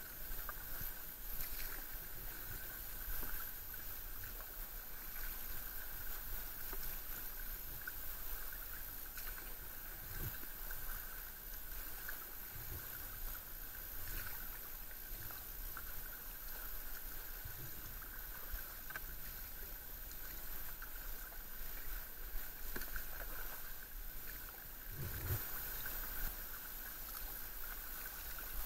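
Kayak paddles dipping and pulling through calm sea water, with water lapping at the hull over a faint steady high tone. Two dull low knocks, about ten and twenty-five seconds in.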